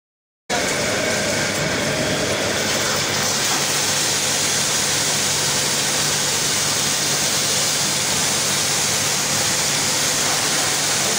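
High-pressure plunger pump's spray wand blasting a jet of water: a loud, steady hiss of spray over a steady low hum from the pump. It starts suddenly about half a second in.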